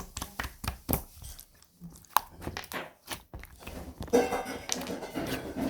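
Blue slime being squeezed and poked by hand, giving a string of sharp wet clicks and pops from trapped air bubbles, thickening into a dense crackle about four seconds in.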